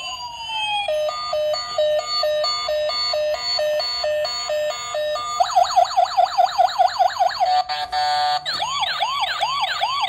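Toy police car's electronic siren, cycling through patterns: a falling wail, then a two-tone hi-lo alternating about twice a second, then a fast warbling yelp, and near the end slower rising-and-falling sweeps.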